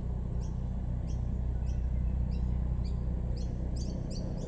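Birds chirping: short high chirps repeated about twice a second, coming faster near the end, over a steady low rumble.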